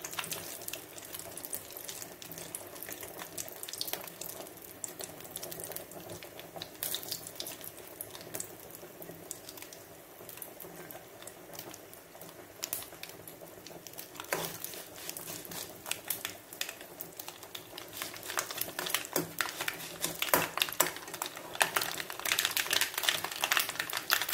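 Mustard seeds and curry leaves heating in coconut oil, sizzling with scattered sharp pops and crackles that come faster and louder toward the end as the seeds begin to splutter.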